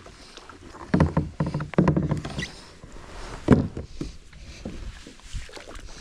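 Plastic sit-on-top kayak and its paddle knocking and scraping as the boat is pushed into a grassy bank, with a cluster of knocks and thumps about a second in and another sharp knock midway.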